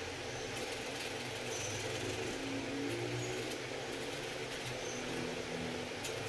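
A steady low mechanical hum over an even hiss, with a few faint short ticks.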